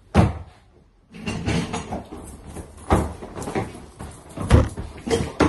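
Knocks and bangs against a wooden built-in wardrobe, with one sharp knock just after the start and then, from about a second in, a quick run of bumps and knocks, the loudest about three and four and a half seconds in.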